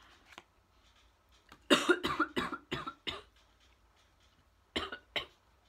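A woman coughing in a fit: a quick run of about five coughs about two seconds in, then two more near the end. She calls it choking and puts it down to the smell of a scented candle.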